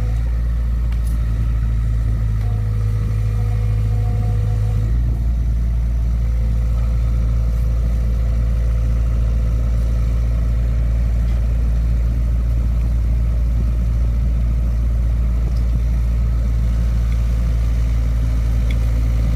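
Excavator's diesel engine running steadily with a deep hum; the engine note shifts slightly about five seconds in.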